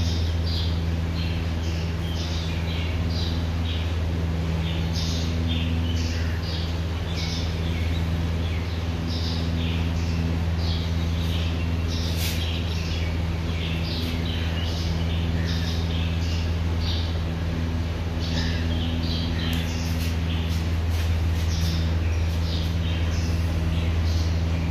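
Small birds chirping, many short irregular calls, over a steady low hum that is the loudest sound throughout.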